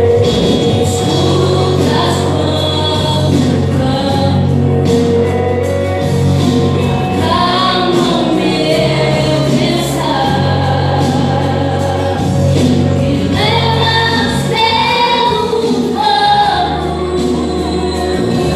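Solo female vocalist singing a Portuguese gospel worship song over instrumental accompaniment with sustained low bass notes.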